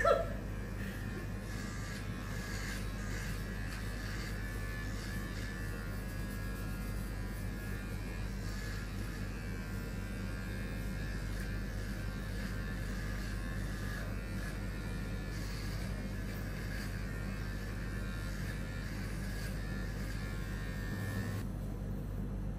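Electric hair clippers buzzing steadily while shaving a head. The higher part of the buzz stops near the end, leaving a low hum.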